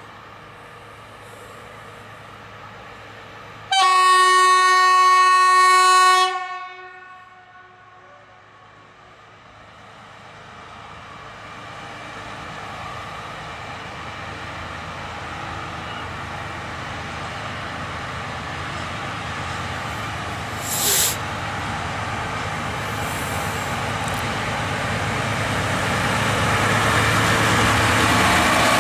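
6Dg diesel shunting locomotive sounding one steady horn blast of about two and a half seconds, then its engine and the rumble of the wagons it hauls growing steadily louder as it approaches and draws alongside. There is a short high hiss about two-thirds of the way through.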